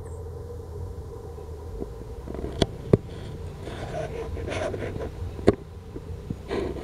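Steady low background rumble with a faint hum, broken by three sharp clicks: two close together in the middle and one about two and a half seconds later.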